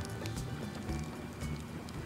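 Background music with an occasional faint crackle of firewood burning in a fire pit.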